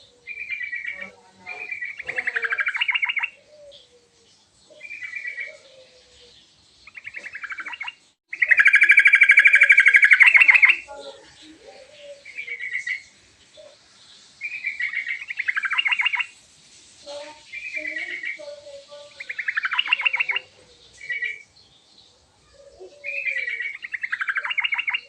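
Yellow-vented bulbul (trucukan) singing: short, repeated phrases of rapid chattering notes, one long loud phrase about a third of the way in, with faint lower warbling notes between the phrases.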